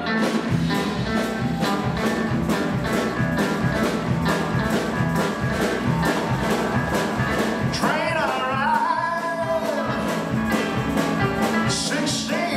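Live rock-and-roll band with electric guitar and drums starting up at once with a steady driving beat. A male singer's voice comes in about eight seconds in and again near the end.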